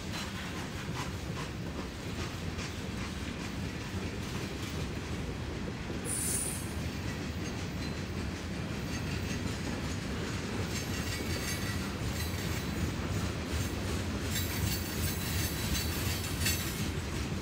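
Norfolk Southern freight train's cars rolling past with a steady rumble and wheel clatter, the wheels squealing high about six seconds in and again near the end.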